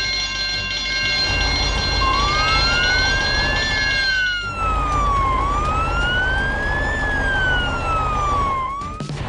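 Emergency-vehicle siren wailing in a slow rise and fall, about three and a half seconds per cycle, over a low engine rumble. A steady held chord of tones cuts off about four and a half seconds in.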